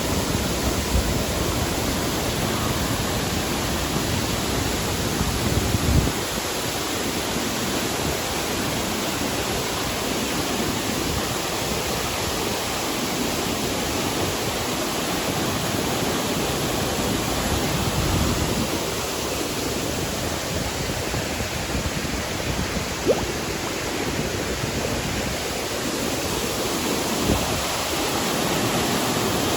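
Waterfall, a steady, even rush of falling water, with a few brief low thumps.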